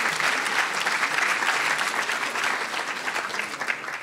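An audience applauding, the clapping dense and steady, then thinning and dying away near the end.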